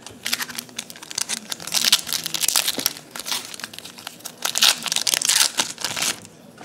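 Foil wrapper of a 2012 Topps Series 2 baseball card pack crinkling and tearing as it is pulled open by hand, in two spells of loud crackling.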